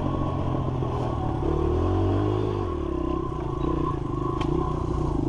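Dirt bike engine running under way, opening up and rising in pitch near the middle, then easing back to a steadier pitch.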